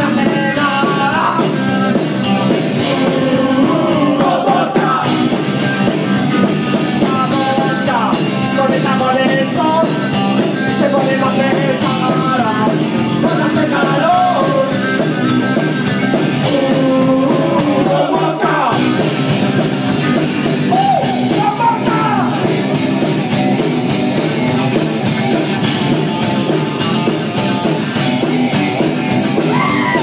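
Live rock band playing loud, with electric guitar and a singer's voice over the band.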